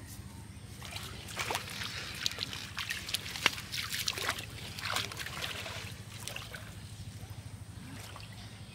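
Water splashing and sloshing as a person wades barefoot into a shallow, muddy pond, in a run of splashes from about a second in until past halfway, fainter after that. A steady low hum lies underneath.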